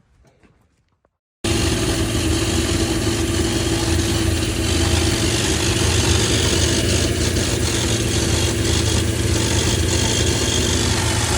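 Holden VN Calais engine idling steadily, running on a fresh first-start tune. It cuts in abruptly about a second and a half in, after near silence.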